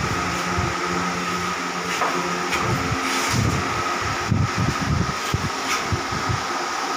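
Steady whirring hum of an electric pedestal fan running, with a thin constant whine. Irregular low bumps and rumbles come in the middle of the sound, from handling and movement close to the microphone.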